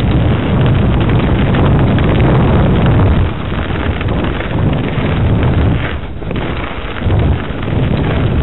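Wind buffeting the camera's microphone as a mountain bike descends at speed, with the rumble and rattle of the bike over the dirt trail. It eases briefly about three seconds in and again around six seconds in.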